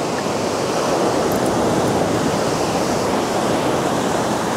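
Ocean surf breaking and washing up the beach: a steady, loud rushing noise.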